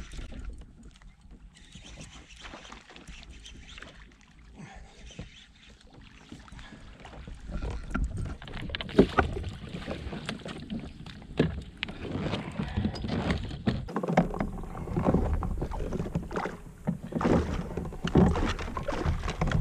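A bass splashing and thrashing in a landing net beside a kayak, water slapping against the hull, then irregular knocks and rustling as the fish and gear are handled on the kayak.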